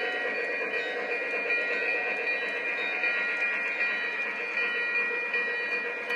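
Lionel O-gauge freight cars rolling past on three-rail track with a steady running rumble and faint clicks. Over it sounds a steady electronic ringing tone from the grade-crossing signal, whose lights are flashing.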